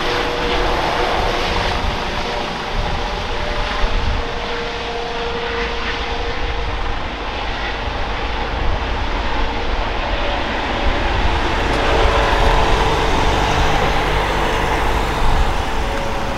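Airbus H135 P3 helicopter flying overhead as it climbs away after take-off. Its twin Pratt & Whitney PW206B3 turboshaft engines and main rotor run steadily, giving a steady turbine whine over a low rotor rumble.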